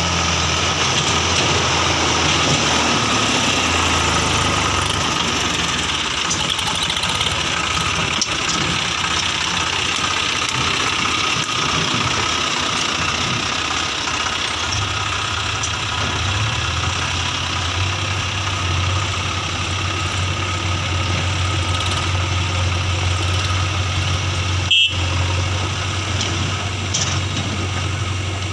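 Diesel engines of a Sonalika DI 740 tractor and a JCB 3DX backhoe loader running steadily, with the tractor's low engine hum growing stronger about halfway through. A single sharp knock near the end.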